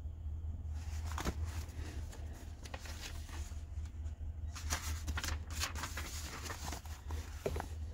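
Paper rustling and crinkling with small handling knocks as the pages of a thick printed book are handled and turned, over a low steady hum.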